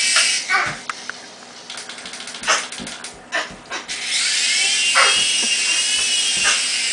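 Micro RC helicopter's small electric motor and rotors whining at a high pitch; the whine drops away about a second in and spins back up with a rising pitch about four seconds in. Short yelps and thumps are scattered over it.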